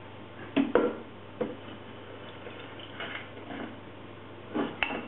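A utensil working a bowl of melted chocolate and butter: soft scraping and squishing, with a few sharp clicks of the utensil against the bowl, two about half a second in and another near the end.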